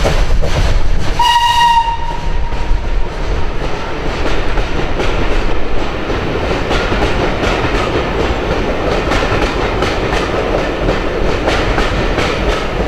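Steam train passing below: a short whistle blast about a second in, then the coaches rumbling past with their wheels clicking over the rail joints.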